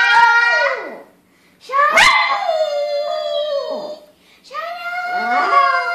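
Maltese dog howling along with a girl's singing: three long, wavering howls, each sliding down in pitch at the end.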